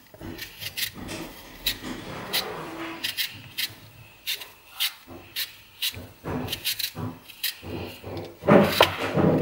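Hand vegetable peeler scraping the skin off an apple in a run of short, uneven rasping strokes. A brief voice is heard about a second before the end.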